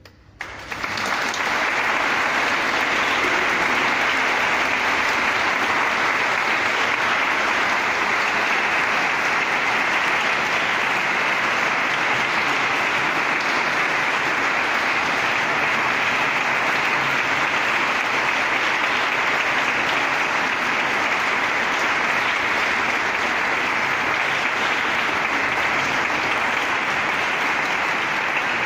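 Audience applauding a choir, breaking out in the first second as the singing ends and then holding as dense, steady clapping.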